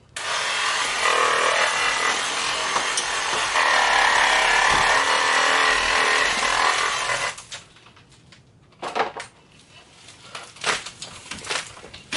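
Reciprocating saw (Sawzall) running for about seven seconds, its whine wavering in pitch as it cuts into the old orchid's root mass, then stopping abruptly. After it stops come scattered cracks and knocks as the plant material is pulled apart.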